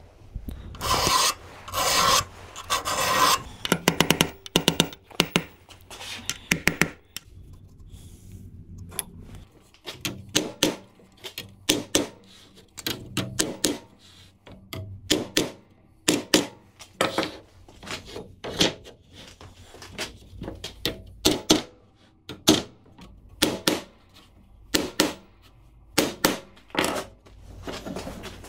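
A hand file rasping in strokes across the steel teeth of a crosscut saw blade. From about ten seconds in, a hammer strikes the teeth, a sharp blow a little more than once a second, setting the teeth.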